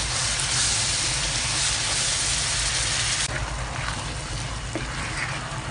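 Tomato-and-pepper shakshuka sauce sizzling and bubbling in a flat wok as a spatula stirs it. A steady hiss drops off sharply about three seconds in, leaving a quieter simmer over a low hum.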